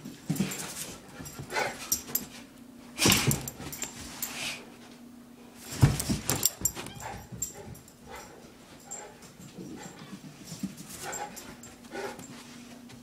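A bullmastiff playing boisterously, its dog sounds scattered through, with two loud sudden thumps about three and six seconds in.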